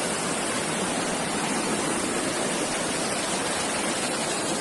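Muddy flash-flood torrent rushing, a steady, unbroken sound of fast-moving water.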